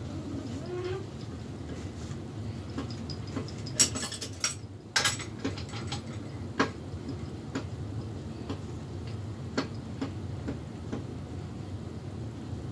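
Metal clinks and clanks of steel pipe fittings and hand tools being handled at a bench vise, with a loud cluster of clanks about four to five seconds in and single knocks after, over a steady low hum.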